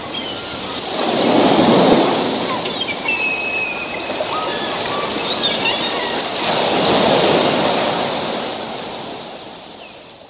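Small waves washing onto a sandy shore, the surf noise swelling twice and slowly dying away, with faint high-pitched calls above it. The sound fades out near the end.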